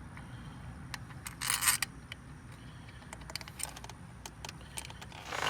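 Small metal clicks and clinks of hand-threading the ignition coil pack's Torx bolts into the engine, with a brief louder clatter about one and a half seconds in.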